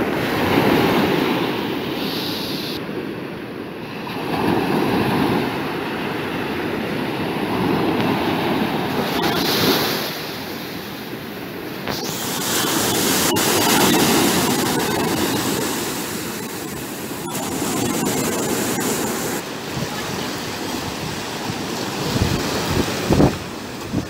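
Black Sea surf breaking and washing up a sand beach in a rough sea, the rush swelling and falling every few seconds as each wave comes in.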